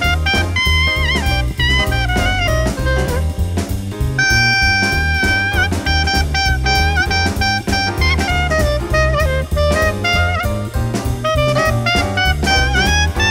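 Background jazz music with a steady drum beat and a bass line under a melody of held notes that bend in pitch.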